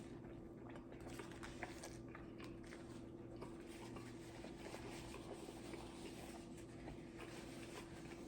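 Faint chewing and mouth clicks of someone eating, over a low steady hum.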